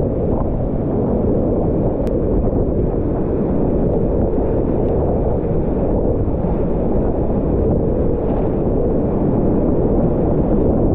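Whitewater of a river in high flood, rushing steadily and loudly, heard muffled through a GoPro's waterproof housing.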